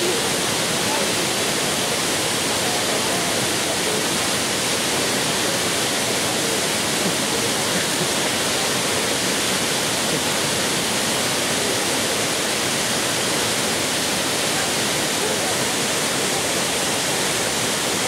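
Waterfall: falling water rushing steadily and evenly, with no change in level.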